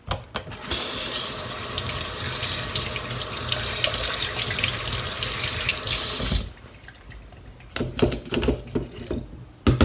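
Kitchen tap running into a sink while dried gourd strips (kampyo) are rinsed under it, a steady rush of water for about six seconds that then shuts off. After it come a few light knocks of handling.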